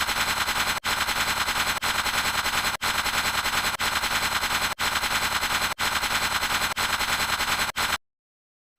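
Sound effect of automatic gunfire: a rapid, unbroken rattle of shots. It is cut into roughly one-second pieces with a brief gap between each, and it stops about eight seconds in.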